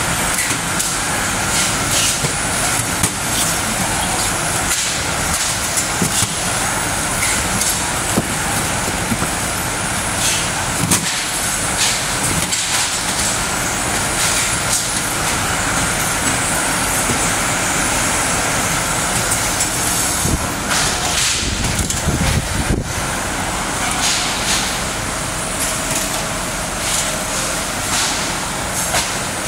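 Steady running noise of shrink-wrap packaging machinery on a factory floor, with a faint steady tone and scattered clicks and knocks.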